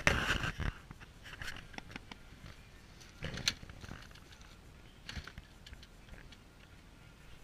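Scattered knocks, clicks and scrapes from a rider handling a green Kawasaki dirt bike while getting ready to kick-start it, with a louder cluster right at the start and others about three and five seconds in; the engine is not running yet.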